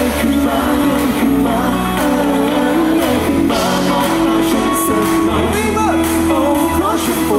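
Live rock band playing loudly, with a man singing lead into the microphone over electric guitar, bass and drums.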